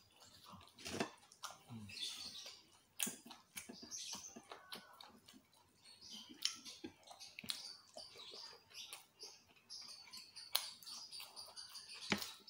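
Faint close-up eating sounds: chewing, with scattered short clicks and crackles as fried chicken and rice are picked apart by hand from a glass plate.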